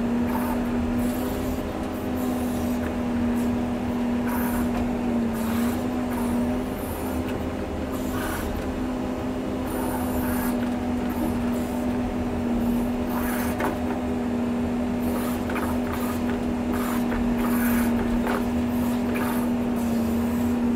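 John Deere 670G motor grader's diesel engine running steadily under load at a crawl, an even drone that holds its pitch. Short scraping and rattling noises come and go over it as the blade works the dirt.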